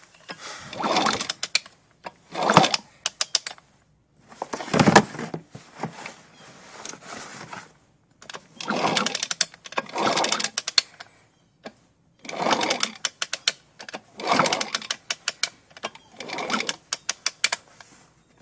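Honda CR125 two-stroke single-cylinder engine being turned over in about nine short strokes, each one a second or so of rapid clicking and rattling that dies away, without the engine running. The uploader takes the noise for worn-out bearings after the engine sat unused for a long time.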